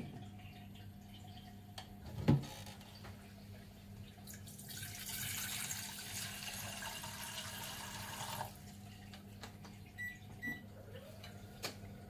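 An enamel saucepan knocks down onto a glass induction cooktop. A few seconds later water is poured into it from a plastic measuring cup for about four seconds. Near the end, two short high beeps come from the cooktop's controls as it is switched on.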